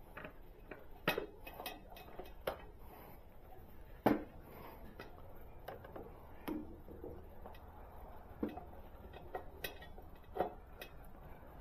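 Irregular light clicks and taps of hand tools and small fasteners against the metal and plastic parts of a Honda Monkey 125 while a screw is being fitted, the sharpest knock about four seconds in.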